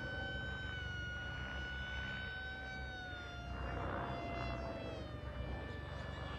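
Electric brushless motor and pusher propeller of an RC model plane in flight, a steady high whine that drops in pitch about halfway through. The plane ran noisy on this flight, which the builder traced to its motor setup.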